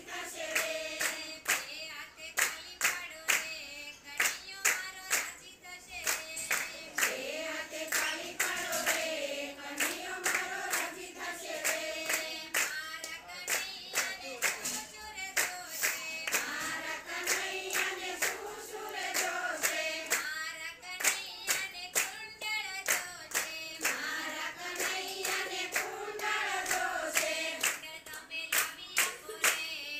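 A group of women singing a Gujarati devotional kirtan together, with everyone clapping hands to a steady beat.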